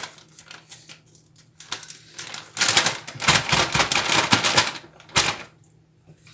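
A spoon clattering and scraping quickly while spreading tomato sauce on pizza dough: a dense run of rapid clicks for about two seconds in the middle, then one more click.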